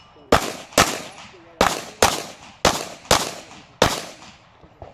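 Handgun shots fired at a run of practical-shooting targets: seven sharp reports, mostly in quick pairs about half a second apart, each trailing off in a short echo.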